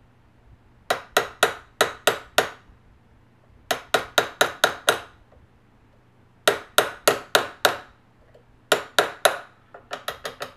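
A small punch being tapped repeatedly to drive a small roll pin out of a Tavor rifle's front sight housing. The taps come in quick runs of about five to seven sharp strikes, about four a second, with short pauses between runs.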